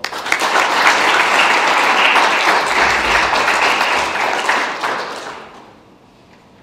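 Audience applause: a room of people clapping steadily for about five seconds, then dying away.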